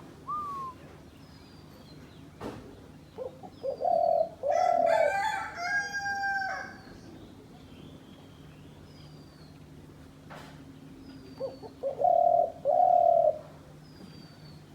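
Dove cooing: two phrases of low, repeated coos, one a few seconds in and another near the end. A higher call with many overtones overlaps the first phrase, and faint high bird whistles sound now and then.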